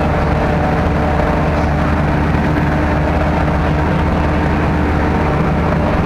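Sherp ATV's diesel engine running steadily as the vehicle drives through mud, heard loud from inside the cab.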